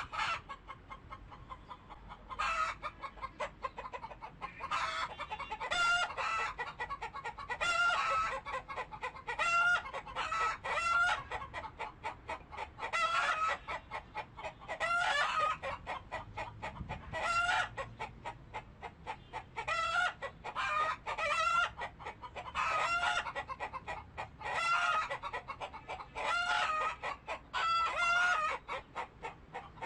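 Chickens clucking and calling, short pitched calls repeating every second or two, some of them like crowing.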